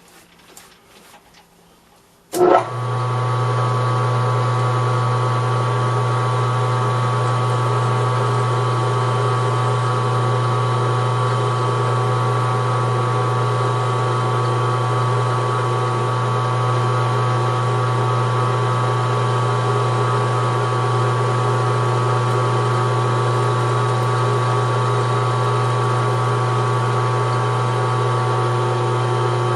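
Metal lathe switched on about two seconds in and running steadily: a low hum with a cluster of steady whining tones above it, ready for parting off a brass knob. Faint clicks come before it starts.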